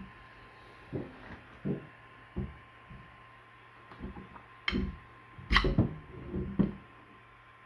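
Irregular knocks and clunks of hard objects being handled, the loudest about five and a half seconds in, over a steady low hum and a thin steady whine.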